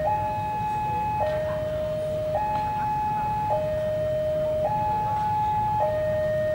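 Railway level-crossing warning alarm sounding a two-tone electronic signal, switching between a higher and a lower tone about every second, warning that a train is coming. A steady low rumble runs underneath.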